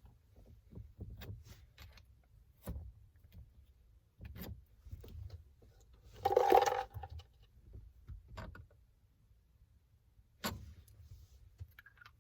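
Small metal shift-knob thread adapters and parts being handled, giving scattered light clicks and knocks. A louder jingling rattle comes about six seconds in.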